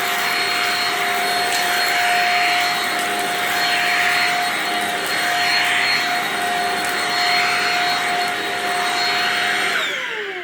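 Vacuum cleaner running with a steady high motor whine, its hiss swelling and fading about every second and a half. Near the end it is switched off and the whine falls in pitch as the motor spins down.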